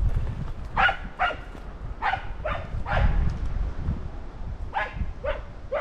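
Hunting dog giving tongue: about eight sharp barks, coming in loose pairs through the few seconds, with low rumbling and rustle from the handler walking through the forest.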